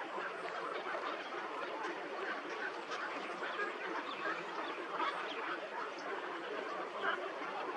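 A large flock of waterbirds calling all at once: a dense, continuous chorus of short, quacking and honking calls overlapping one another.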